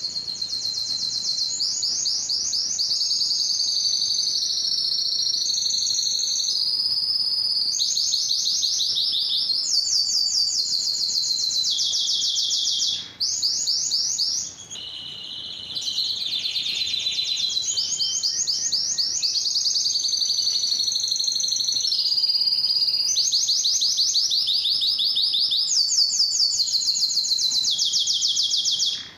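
Male domestic canary singing a long, continuous song of rapid trills. Each phrase is a fast run of repeated high notes lasting a second or two before it switches to the next, with a brief break about 13 seconds in.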